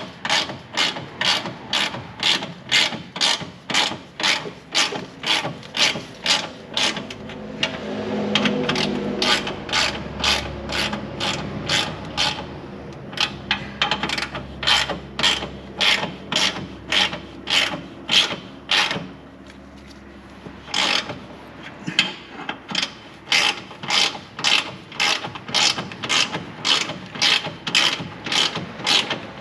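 Hand ratchet wrench clicking in a steady rhythm, about two to three clicks a second with a few short pauses, as the nuts on an exhaust butt-joint clamp are tightened.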